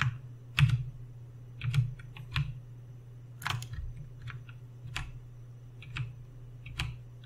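Computer keyboard keys pressed one at a time: about a dozen separate, irregularly spaced keystrokes, each one a short click, over a steady low hum.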